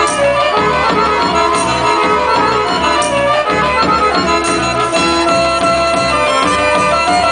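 Serbian folk dance music from the Vranje region playing, a melody over a fast, steady beat, with dancers' tambourines struck about every second and a half.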